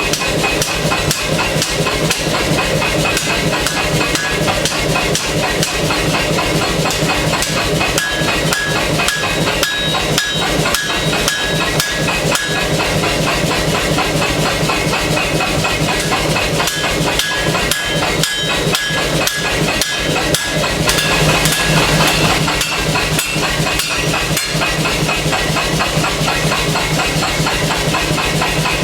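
Pneumatic air hammer (power hammer) running, striking hot knife steel in a fast, steady string of blows over a continuous low hum and hiss, with brief ringing tones from the metal now and then.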